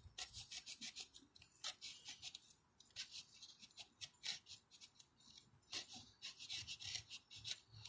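Faint, irregular scratching of a small craft knife's blade picking and slicing through frayed high-temperature cloth insulation on a wire, a few short strokes a second with brief pauses.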